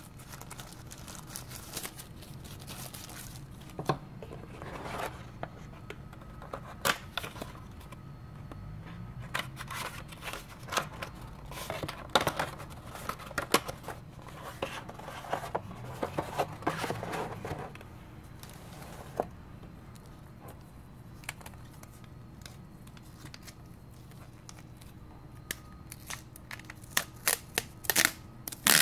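Tissue paper and clear plastic wrapping crinkling and rustling in the hands, with small sharp clicks and taps of cardboard and plastic parts, over a steady low hum. The rustling is busiest in the middle, eases off, then picks up again with a few crisp crinkles near the end.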